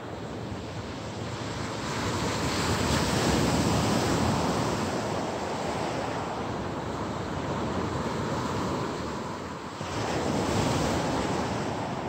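Sea surf breaking and washing up a pebble beach, a steady rush of noise that swells in a first surge and then again about ten seconds in.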